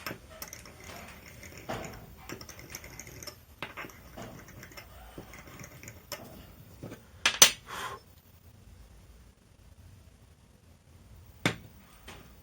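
Light scratching and small clicks of a part and tools being handled while hole positions are marked out, with two sharper clacks, one about halfway through and one near the end.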